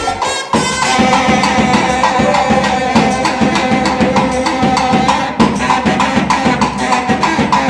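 Brass-house busking music: a baritone saxophone riff over a drum beat. It comes in about half a second in, after a short tail of reggae music.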